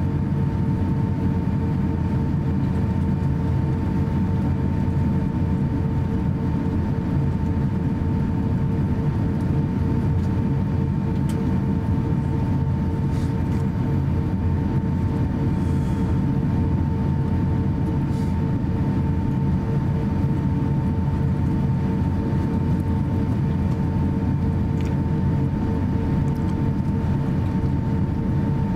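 Cabin noise inside a taxiing Airbus A350-900: a steady low rumble with two steady whining tones running through it, and a few faint ticks.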